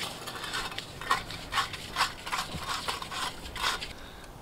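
Camp cooking gear being handled: a portable gas stove and its fuel canister fitted together, giving irregular light metal clicks and clatter, about six over three seconds.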